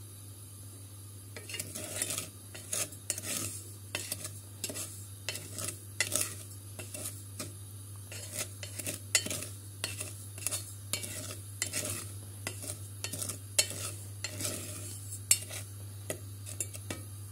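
A spoon stirring and scraping dry granulated sugar in a pot on the stove as it is toasted toward caramel, with irregular clinks and scrapes against the pot from about a second and a half in. A steady low hum runs underneath.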